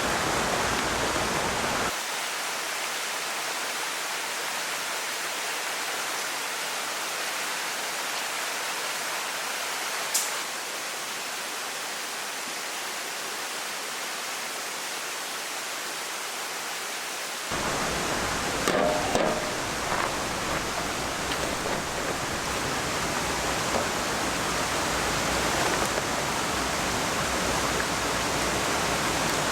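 Steady rush of flowing water, a waterfall or mountain stream. The deep part of the rush drops away for about fifteen seconds in the middle, then comes back.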